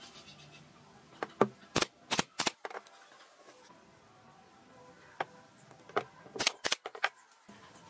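SOYI pneumatic brad nailer firing sharp shots into the corners of a wooden frame: a quick group of about four about two seconds in and another group of three about six and a half seconds in.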